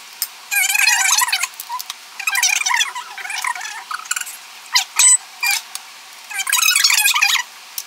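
Short bursts of squeaky, high-pitched, voice-like chatter with no low end, with one sharp click about five seconds in.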